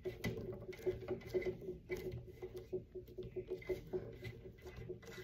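Hands pressing and patting a slab of Model Magic clay flat on a wooden tabletop: faint, irregular soft taps and pats.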